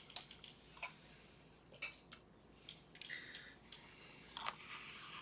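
Light clicks and short scrapes from a six-pin pin tumbler lock and small tools being handled, as it is opened up to take out the plug and pins.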